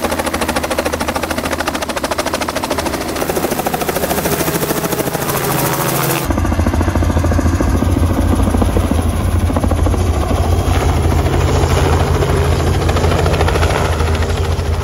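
Small helicopter's rotor beating steadily as it flies low. About six seconds in, the sound cuts to a louder, deeper rotor beat as it hovers close, carrying a load slung beneath on a long line.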